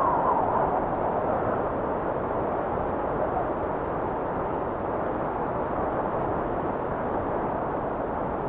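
Wind blowing steadily, with a gust swelling and easing off near the start.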